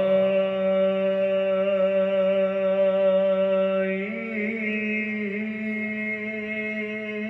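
A man's voice chanting one long drawn-out note, rising into pitch at the start, stepping slightly higher with a waver about four seconds in, then held until it fades just after.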